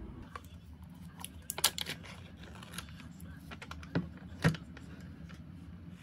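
Light kitchen clatter: a run of small clicks and knocks, as of utensils and dishes being handled, with two sharper knocks, one about a second and a half in and one about four and a half seconds in.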